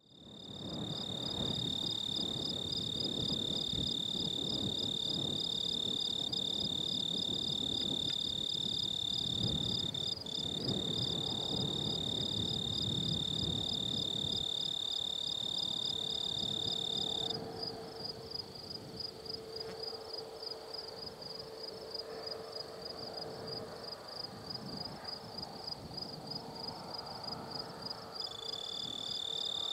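Crickets and other insects calling in dry grass: a steady high-pitched trill with a rapid pulsing trill beneath it, the steady one cutting off about halfway through and starting again near the end. A low rumbling noise lies under them in the first half.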